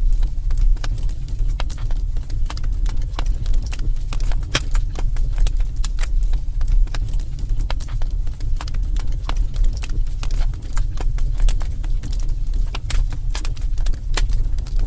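Wood fire burning in a fireplace, crackling and popping at irregular intervals over a steady low rumble.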